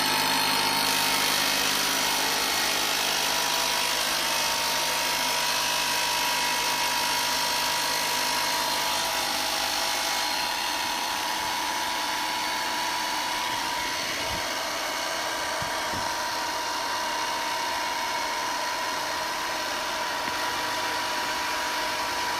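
Ryobi inflator running steadily as it pumps up a ball, a constant pitched motor drone. Its tone shifts slightly about halfway through, and it cuts off at the end.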